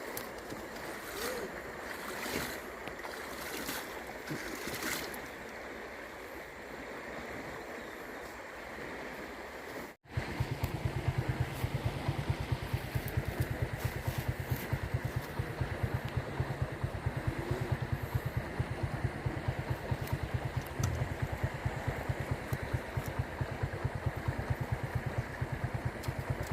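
Water and wind noise with a few sharp knocks or splashes about a second apart. After a sudden break about ten seconds in, a motor runs with a steady, fast low throb.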